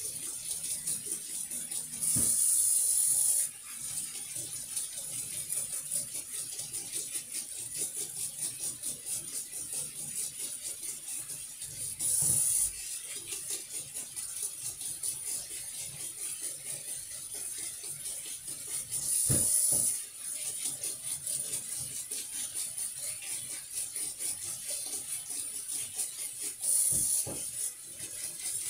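Dishes being washed by hand in a stainless steel kitchen sink: a steady scratchy rattle of scrubbing and handling, broken four times by louder hissing spells of tap water running for a second or so.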